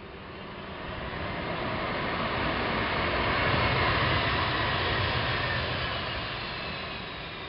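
Jet engines of a Boeing 767-200 on its landing roll. The noise builds to a peak about four seconds in and then eases off, with a high whine slowly falling in pitch.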